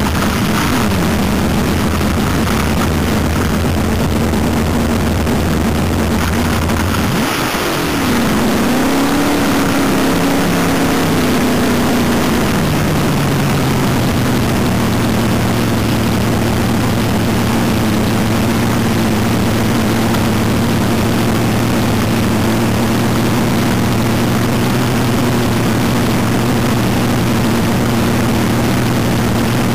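Front-engine dragster's V8 with open zoomie headers running at a loud, steady idle. About eight seconds in the revs rise briefly and ease back down over the next few seconds, then settle into an even idle.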